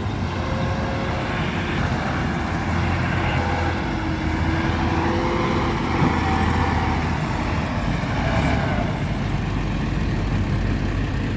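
Farm tractor's diesel engine running steadily under heavy load as it hauls a trailer piled with soil across loose dirt, its pitch drifting slightly up and down.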